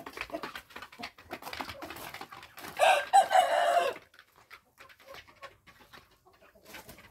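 A rooster crowing once, a loud call about a second long roughly three seconds in, over scattered short crunches of footsteps on gravel and dirt.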